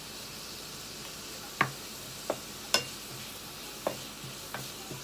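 Vegetables sizzling in oil in a frying pan while a wooden spatula stirs them, knocking sharply against the pan about five times.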